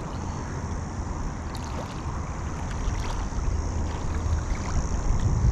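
Wind buffeting the microphone in a steady low rumble, with water lapping at a rocky shoreline.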